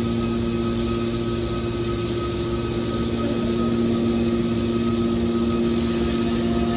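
TCM hydraulic scrap metal baling press running: a steady machine hum with a low drone held throughout.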